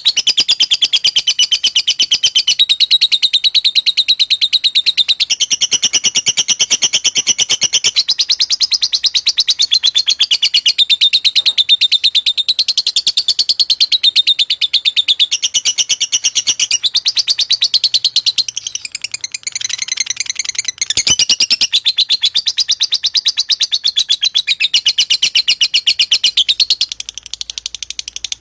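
Lovebird singing a long, continuous, very rapid chattering trill, the fighter-style song used to spur other lovebirds into long bouts of song. It dips briefly about two-thirds of the way through.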